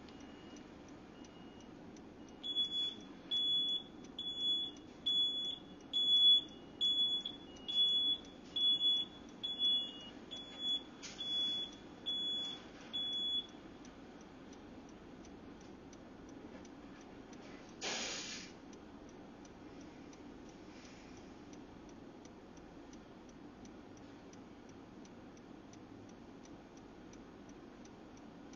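Car's electronic warning chime beeping repeatedly, one high beep about every three-quarters of a second for roughly ten seconds, over a faint steady ticking. A short rush of noise comes about 18 seconds in.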